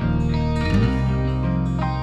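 Background music: relaxing instrumental music led by plucked guitar over a steady bass line.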